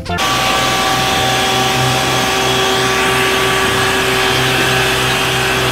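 Isuzu water cannon truck spraying from its roof cannon: a steady rushing hiss of the water jet over a steady mechanical hum and whine.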